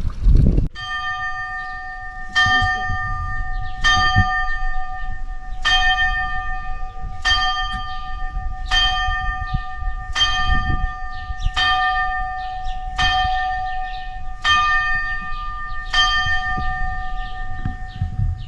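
A single church bell struck about eleven times at the same pitch, roughly every second and a half, each stroke ringing on into the next, tolling the hour or a call.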